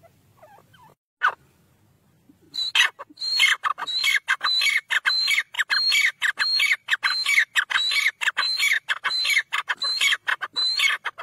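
Grey francolin (desi teetar) calling: a single short note, then a couple of seconds in a loud, fast run of repeated high notes, about two a second, kept up steadily for several seconds.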